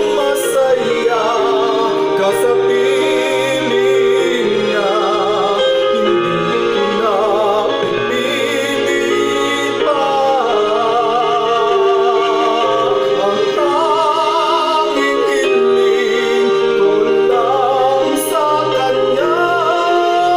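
A man singing with heavy vibrato into a handheld microphone, over a steady musical backing.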